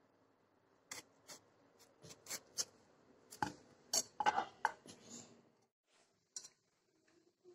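Kitchen knife clicking and scraping against a ceramic plate as tomatoes are cut in half. A dozen or so light, sharp taps are spread over the first five seconds, with a short scrape around four seconds in.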